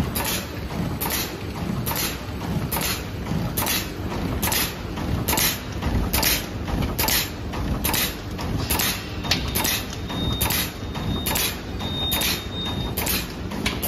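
A stand-up zipper pouch making machine (CWZD-600ZF+SZ) running, with a sharp stroke repeating evenly a little more often than once a second over a steady mechanical clatter: the machine cycling through sealing and cutting one bag after another. A faint thin high tone comes in about ten seconds in.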